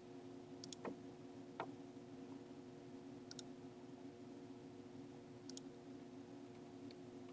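Faint computer mouse clicks, four or five of them spaced a second or two apart, over a low steady hum.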